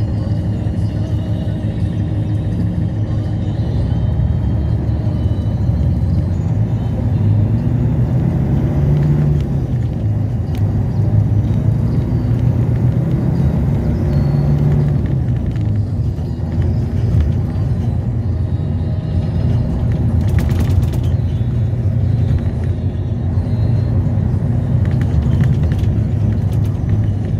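Steady engine and road rumble heard from inside a moving bus, the engine note rising and falling a little as it drives through traffic.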